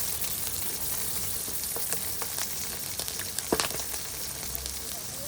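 Food sizzling in a hot pan, a steady hiss with scattered pops and crackles.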